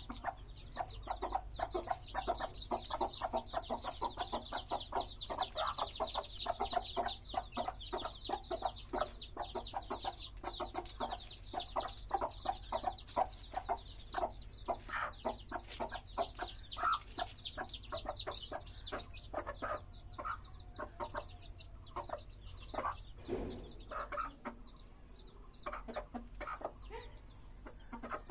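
A brood of chicks peeping rapidly in a high, dense chorus, with a hen clucking lower beneath them. The peeping thins out in the last third.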